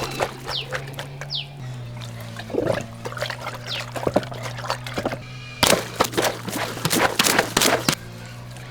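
Background music with a steady low drone, over water pouring and splashing, with a run of sharp splashes and clicks about six to eight seconds in.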